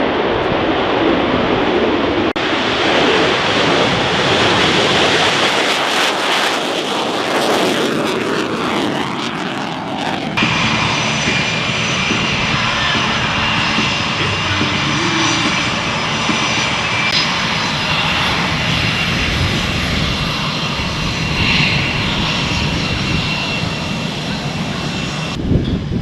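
Aircraft engine noise in several short stretches that change abruptly about 2 seconds and 10 seconds in; from about 10 seconds on, a steady high whine runs over the engine noise.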